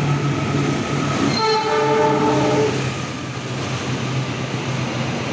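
A diesel locomotive sounds its horn once for about a second, starting about a second and a half in, while the passenger train it hauls rumbles through the station.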